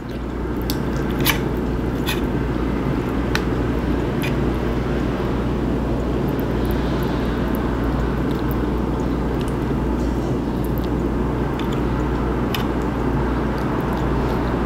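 A steady rushing noise, with a few light clicks of a metal fork against a plate.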